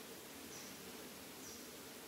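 Steady outdoor insect drone, with a faint short high chirp repeating about once a second.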